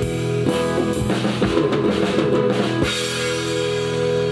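Live rock band playing, led by a drum kit: a few heavy drum hits over held notes from bass guitar and guitars, with no singing.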